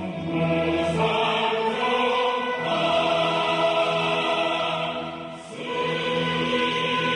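Opera chorus singing long held notes in several parts, swelling and briefly fading about five seconds in before carrying on.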